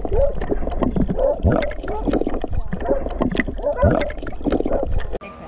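Dogs paddling in the water, heard underwater close by: irregular splashing and gurgling bubbly churn from the strokes of their legs, cutting off suddenly near the end.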